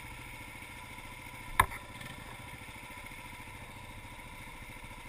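Motorcycle engine idling steadily while stopped, heard through a helmet-mounted camera, with a single sharp knock about one and a half seconds in.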